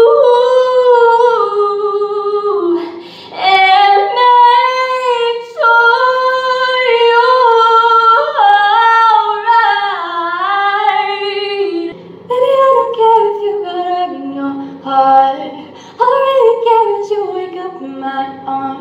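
A woman singing unaccompanied, long held notes with slides between them in phrases broken by short pauses, ringing in the small tiled bathroom.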